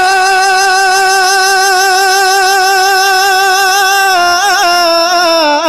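A man's voice singing a naat, holding one long note with a slight vibrato for about four seconds, then stepping down through quick ornamented turns near the end.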